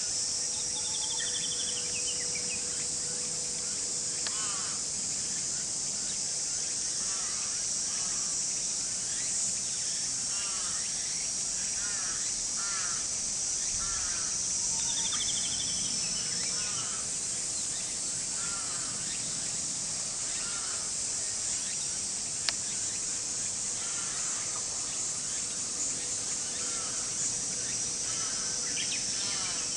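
A steady high-pitched drone of insects, with short bird calls scattered throughout, among them crows cawing. A single sharp click about two-thirds of the way through.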